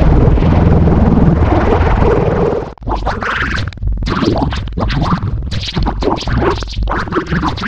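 Loud, heavily distorted effects-edit audio. A dense harsh wash runs for about two and a half seconds, cuts out briefly, then gives way to choppy, stuttering scratch-like fragments.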